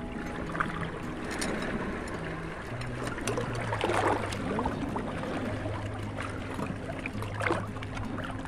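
Seawater washing over a rocky shoreline in the shallows, with a wave surging over the rock about four seconds in. There are a few sharp clicks of a steel knife blade knocking against the rock as chitons are pried off.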